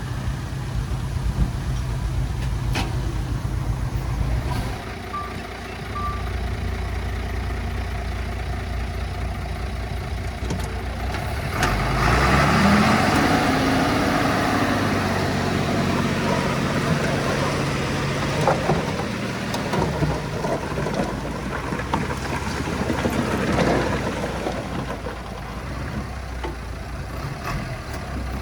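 Heavy-equipment diesel engine running steadily, revving up about twelve seconds in and easing back down over the following seconds. Two short faint beeps sound about five to six seconds in.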